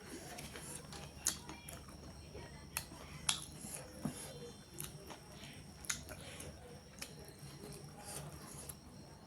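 Close-up eating sounds: a few sharp clicks and smacks while chewing, about four loud ones, over a steady low hum.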